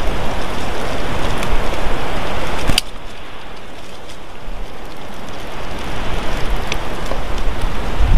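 Steady rushing weather noise on the nest camera's microphone, with a few faint ticks. A sharp click comes a little under three seconds in, after which the noise is quieter.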